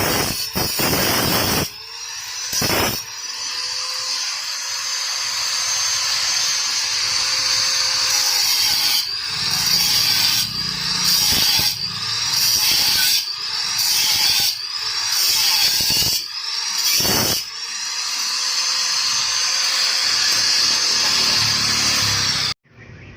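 Handheld electric power tool run against the metal of a stock motorcycle exhaust. It runs in a long stretch, then in short bursts about every one and a half seconds, its pitch rising each time it spins up. It cuts off suddenly near the end.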